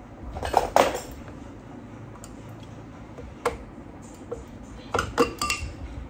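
Sharp metallic clinks and knocks from metal hardware being handled: two just under a second in, one a little past the middle, and a quick cluster of three near the end.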